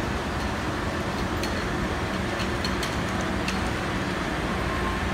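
Steady hum and rumble of a Taipei Metro C371 train standing at an underground platform with its doors open. A few light clicks, passengers' footsteps, sound between about one and three and a half seconds in.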